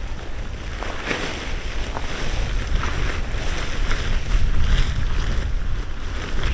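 Wind buffeting the microphone with a steady low rumble, over the scattered rustle and flap of a fabric tarp being lifted and spread out by hand.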